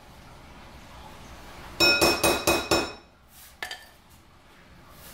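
A quick run of about six ringing clinks of kitchenware knocked against the rim of a mixing bowl about two seconds in, knocking the last of the batter off, followed by one fainter click.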